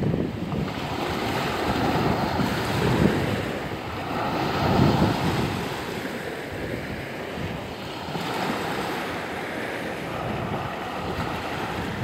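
Small sea waves breaking and washing on the shore in slow surges, with wind buffeting the microphone.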